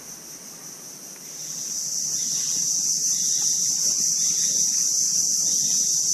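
Steady high-pitched insect chorus, a continuous drone of crickets or cicadas. It is faint for the first second or so, then swells back to full strength and holds steady.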